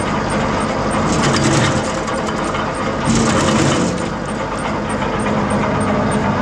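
Wood chipper running under a steady engine drone, chipping willow branches. Twice, about a second in and about three seconds in, it turns louder and harsher for about a second as branches go through.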